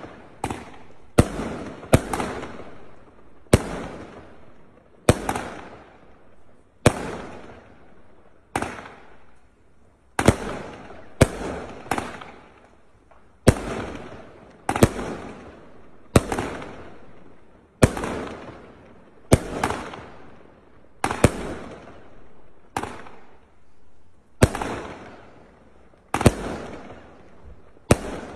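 A Gemstone Cobalt 1.3G barrage cake firing shot after shot: sharp bangs about once a second, each trailing off before the next.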